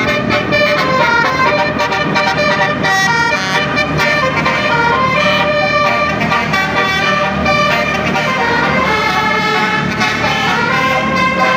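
Telolet multi-tone horn playing a melody: several horn tones sound together and step up and down in pitch without a break.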